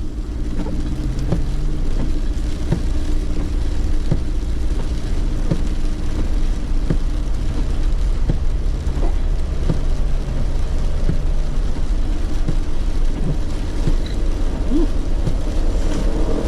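Car driving, heard from inside the cabin: a steady low engine and road rumble with a faint click about every second and a half.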